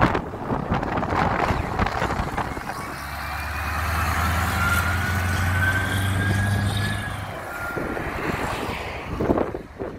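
Scania R-series truck driving slowly past close by, its diesel engine a steady low hum for several seconds in the middle, with a thin whine slowly rising in pitch over it. The engine note drops away after about seven seconds as the truck moves off.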